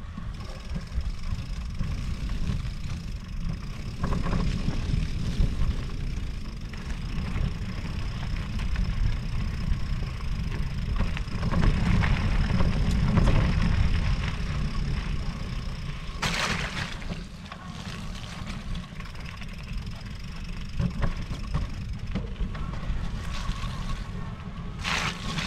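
Riding an electric mountain bike: wind rumbling on the microphone over the rolling of the tyres, with a thin steady whine that drops out for a couple of seconds. Two sharp rattles come later on, one of them near the end.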